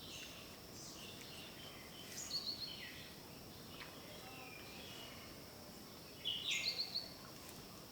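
Birds calling: a few short high chirping phrases, the loudest about six and a half seconds in, over a faint steady background with a thin high steady hum.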